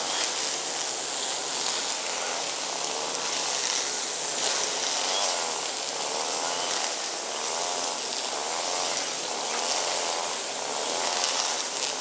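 Steady high-pitched outdoor hiss, with faint distant voices murmuring through the middle.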